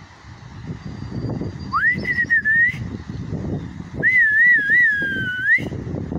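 A person whistling two short phrases: first a quick upward slide into a wavering note, then about a second later a longer warbling note that sags and slides up again at the end. Wind rumbles on the microphone underneath.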